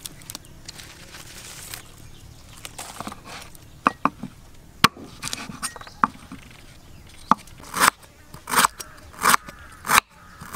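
A few sharp taps, then from about three-quarters of the way in a knife cutting crisply through lemongrass stalks on a wooden chopping board, one crunchy cut about every three-quarters of a second.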